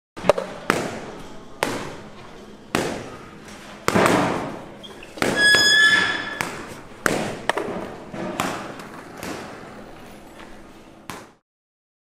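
A run of sharp thuds and knocks, roughly one every half second to second, each ringing out with a long echo in a large hall. There is a brief high squeak about halfway through, and the sound cuts off suddenly near the end.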